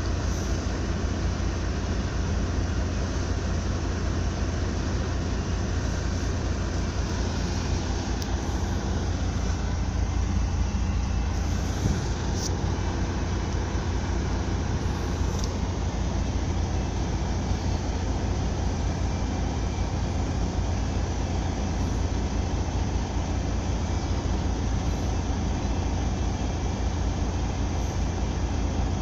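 Car ferry's engine running steadily under way: a continuous low drone with an even hiss over it.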